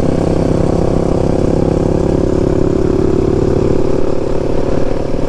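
Husqvarna 701's large single-cylinder four-stroke engine running at a steady cruising speed, heard from the rider's helmet, with wind and road noise.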